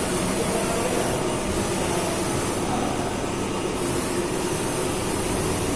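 CNC lathe running: a steady mechanical whir with hiss.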